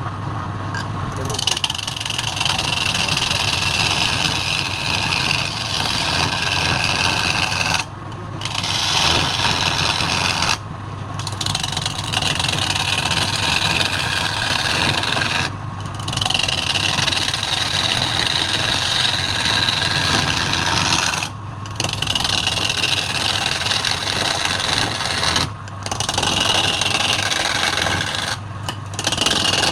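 Wood lathe running with a steady hum while a tool or abrasive is held against the spinning wood, making a continuous hissing, scraping contact noise. The contact breaks off briefly about six times, when the tool is lifted, while the lathe keeps running.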